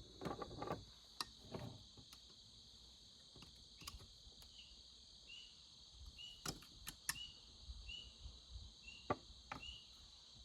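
Faint, scattered clicks and knocks of hand tools and parts on a chainsaw's brake handle and brake cover as a stuck part is pried at. Under them runs a steady high hiss, and from about halfway in a short chirp repeats about every two-thirds of a second.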